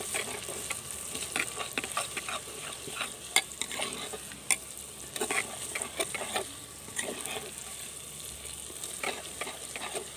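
Onions with ginger-garlic paste and red chilli paste sizzling as they fry in ghee in a clay pot, while a ladle stirs them, scraping and clicking against the pot's sides many times.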